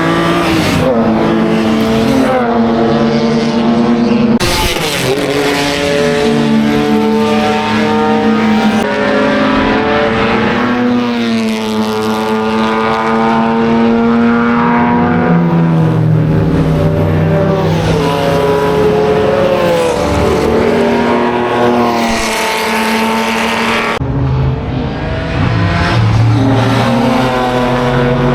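Historic racing car engines at full racing speed, loud, their pitch rising and falling as the cars accelerate, brake and pass. The sound changes abruptly a few times as different cars take over.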